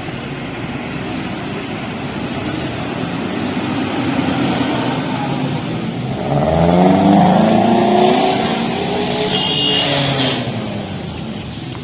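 Large diesel bus engine revving up and then easing off as it pulls past, over steady traffic noise. A brief burst of hiss comes about nine seconds in.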